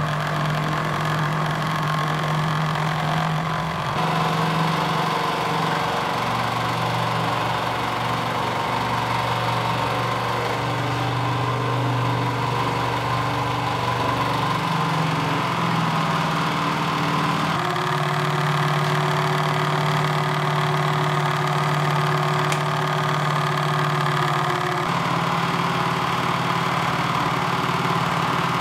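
3D-printed winch's electric motor and nylon carbon-fibre worm-gear drive running steadily as it winds in the rope and lifts a 150-pound CNC table. Its hum shifts in pitch a few times.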